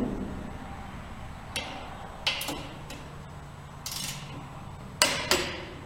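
Sharp metallic clicks from a click-type torque wrench and socket tools as the motorcycle's front-end bolts are tightened to torque: a handful of separate clicks, some in quick pairs, with a short ratcheting scrape near the middle, over a low steady hum.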